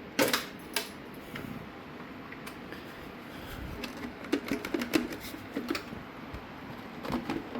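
Scattered clicks and knocks of an e-bike's battery pack being unlocked and taken out of its mount, two near the start and a cluster around the middle.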